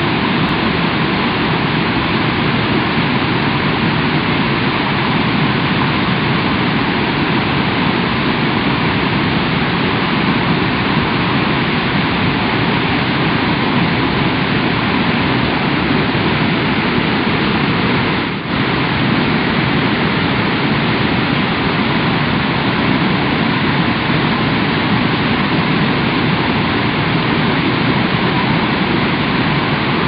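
Waterfall: a mountain stream pouring over rocks into a pool, a loud, steady rush of falling water with one brief dip about two-thirds of the way through.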